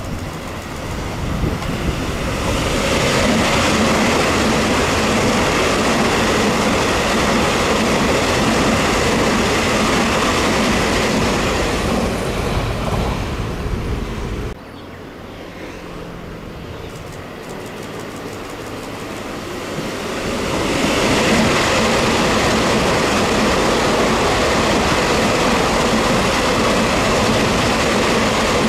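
Taiwan Railways EMU3000 electric express train passing at speed, a steady rush of wheels on rail building over the first few seconds. The sound cuts off abruptly about halfway through. A second train's noise then builds over a few seconds and stays loud to the end.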